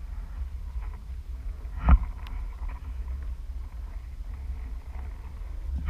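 Wind buffeting the camera microphone as a low, uneven rumble, with one sharp knock about two seconds in.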